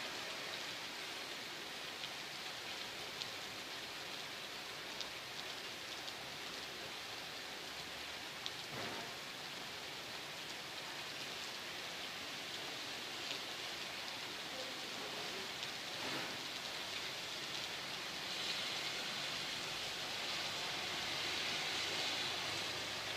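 Steady heavy rain falling over a town, an even hiss that grows a little louder in the last few seconds.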